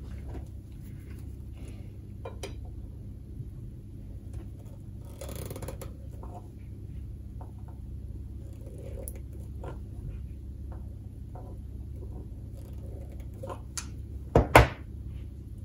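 Light clicks and handling noises of side cutters squeezing a 6 mm aluminium tube to crimp it into an antenna mount, over a steady low hum. Near the end come two sharp knocks on the wooden worktop as the cutters are set down.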